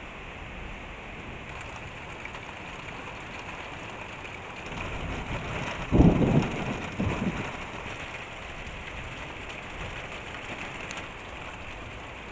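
Steady rain, with a clap of thunder about halfway through. A rumble builds, then comes a sharp crack, a second peak about a second later, and the rumble fades within a couple of seconds.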